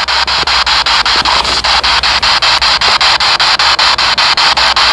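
Ghost box (spirit box) sweeping radio stations: loud radio static chopped into short pieces about seven times a second. The ghost hunters take it as an answer to their question, hearing the name 'Susan' in it.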